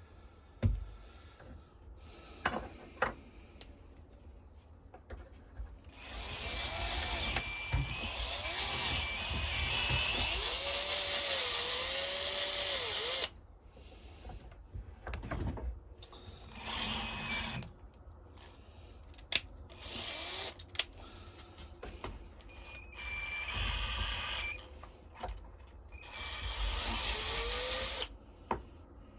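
Power drill run in several bursts, the longest about seven seconds, with sharp knocks between runs, drilling a pin hole out in a G10 knife handle.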